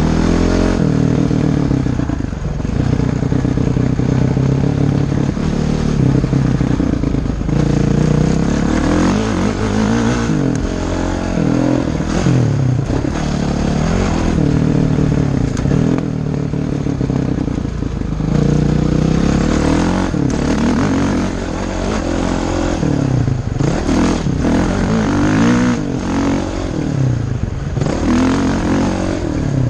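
Honda CRF450X single-cylinder four-stroke dirt bike engine heard from on the bike, repeatedly revving up and easing off as it is ridden along a dirt trail.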